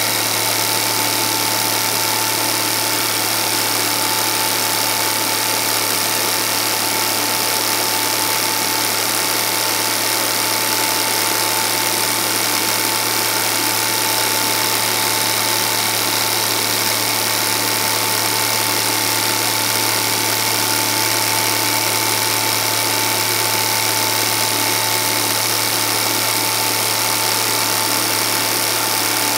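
Film projector running: a steady motor hum with a thin whining tone and hiss over it, unchanging throughout.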